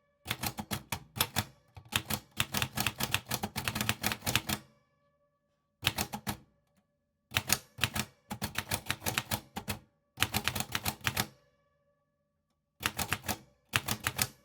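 Typewriter keys being struck in quick runs, several keystrokes a second, each run the length of a word or phrase, with short pauses between runs.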